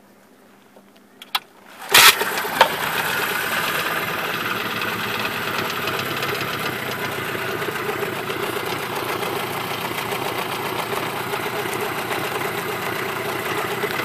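A 1987 Mercury 20 hp two-stroke tiller outboard, a pull-start motor, fires about two seconds in and settles straight into a steady idle.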